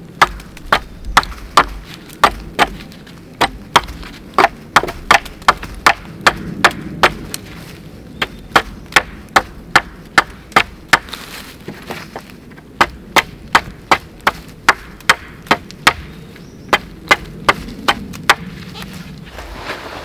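Wood being chopped with rapid, regular sharp strikes, about two or three a second, with a short pause about eleven seconds in before the chopping resumes.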